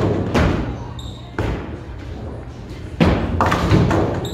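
Bowling ball and pins crashing on a lane with Qubica AMF Edge string pinspotters: a series of sudden thuds and clattering crashes, the last few close together near the end.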